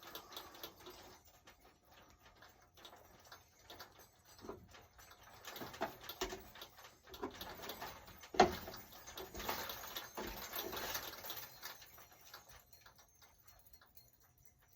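Small clicks and handling sounds from a manual key cutting machine being adjusted with a key blank clamped in it, with one sharp knock about eight seconds in.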